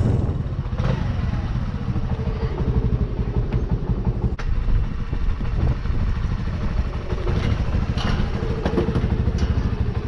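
Honda Navi's small single-cylinder engine running steadily with a rapid low pulse, plus a few sharp clicks.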